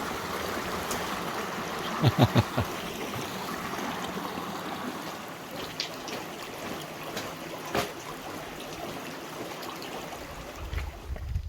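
Small stream running over rocks: a steady rush of water, with a quick run of about four knocks around two seconds in and one more knock later.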